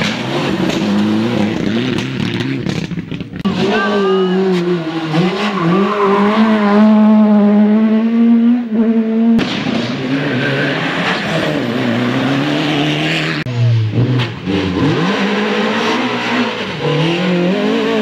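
Rally cars driving flat out, engines revving hard with the pitch climbing and dropping through gear changes. The sound switches abruptly between cars three times.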